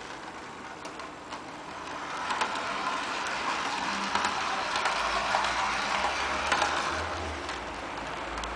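Rivarossi model Pacific Electric "Dragon" streetcar running on its track: a steady electric motor and gear whir with scattered light ticks from the wheels. It grows louder about two seconds in as the car passes close, and eases near the end.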